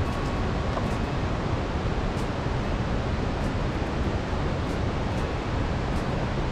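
Steady, dense rush of a large mountain river running through a deep gorge, the Langtang Khola in spate below the trail.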